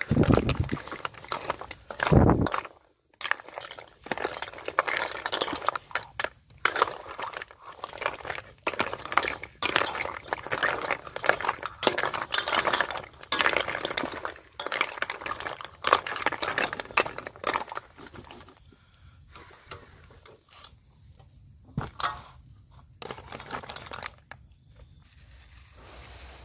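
Snail sour soup boiling hard in a wok while a ladle stirs it, scraping and clinking against the pan, with two heavy knocks near the start. The last several seconds are much quieter, with only scattered small clicks.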